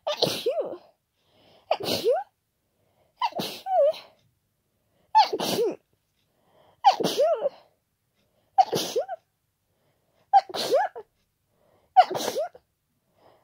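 A person with a head cold sneezing hard, eight wet sneezes in a row about every second and three-quarters, each a sudden loud voiced "achoo".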